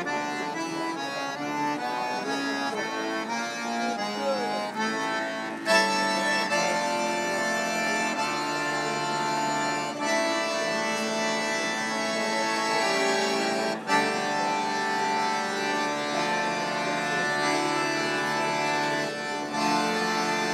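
Two accordions playing a tune together: sustained chords under a moving melody. There is a sharp accent about six seconds in, and a brief break about fourteen seconds in before the playing carries on.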